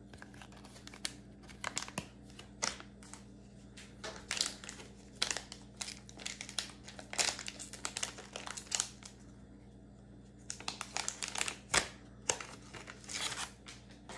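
Plastic wrapper of a football trading card pack being crinkled and torn open, in irregular short bursts with a brief lull about ten seconds in.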